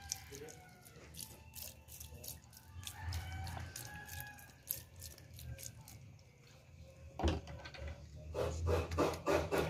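A rooster crowing in the background, with faint clicks of handling at the pot. About seven seconds in there is a sharp knock, followed by a run of quick taps.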